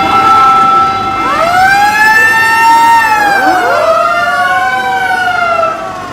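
Fire engine sirens sounding in a siren test, more than one wailing at once. A new wail rises about a second in, holds, then falls away while another rises under it.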